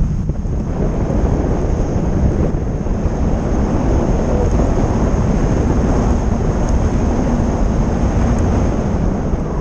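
Loud, steady wind rushing and buffeting over an action camera's microphone as a tandem paraglider flies, with a faint steady high-pitched tone above it.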